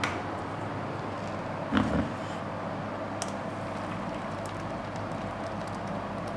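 Steady background hum with one knock about two seconds in, from the glass blender jug being handled as blended watermelon juice is poured through a metal mesh strainer.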